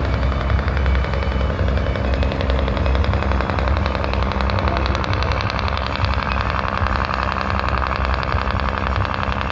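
Heavy Scammell truck engines, among them a 6x6 Scammell Explorer, running under load as the coupled trucks pull, with a steady deep sound and a rapid, even pulsing beat.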